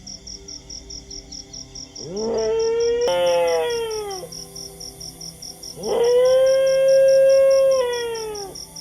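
Dogs howling in two long howls. The first comes about two seconds in, rising and then falling in pitch, with a second dog joining it. The second, about six seconds in, is held steady and then falls away. Under them runs a steady high chirp, like crickets, pulsing about six times a second.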